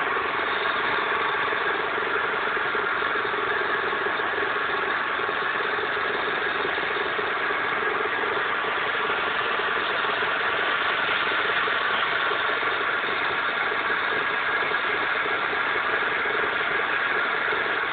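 Metal lathe running steadily while turning a 4140 chrome-moly steel shaft, the cutting tool feeding along the bar. A constant machine hum with a steady mid-pitched tone, unchanged throughout.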